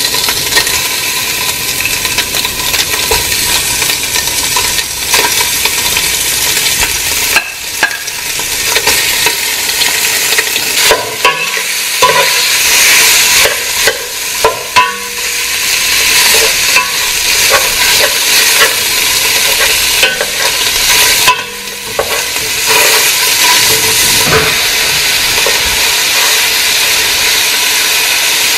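Ground turkey sizzling steadily as it browns in a pot, while a utensil breaks it up and stirs it, scraping and tapping against the pan.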